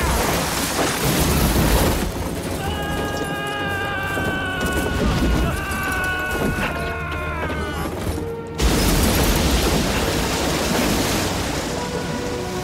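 Action-film soundtrack: heavy rumbling and booms, then a held musical note over the rumble for several seconds, broken off by a sudden loud blast about eight and a half seconds in, after which the rumbling goes on.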